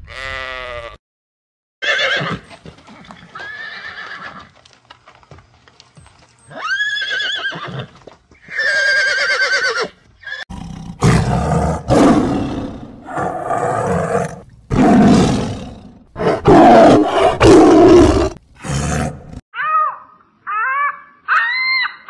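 Sheep bleating, several separate calls. From about ten seconds in, a tiger roars in a series of loud, rough calls. Near the end comes a run of short, high calls that rise and fall.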